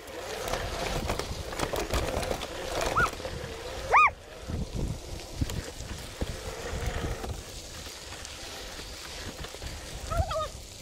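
Mountain bike rolling over a dry dirt and gravel trail: steady tyre crunch and frame rattle with many small knocks from bumps. A brief high squeak, rising and falling in pitch, stands out about four seconds in, with fainter ones near three seconds and near the end.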